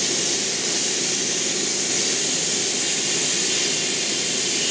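Airbrush spraying a velvet finish of sprayed chocolate onto bonbons: a steady hiss of compressed air with a lower hum beneath.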